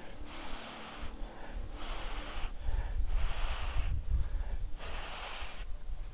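A person blowing hard into a dry-grass tinder bundle around a friction-fire ember: about six long blows, with short pauses for breath between them. It is the stage where the ember is being blown into flame, and the bundle is giving off smoke.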